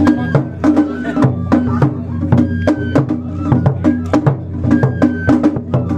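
Japanese festival drumming on a large taiko mounted on a float: sharp, rapid strokes, about three a second, keeping a steady festival rhythm, with held higher tones coming and going over it.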